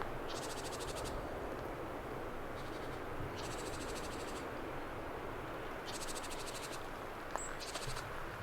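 Several separate bursts of fast, high-pitched chirring, each about half a second to a second long, like insect stridulation, over a steady rushing background.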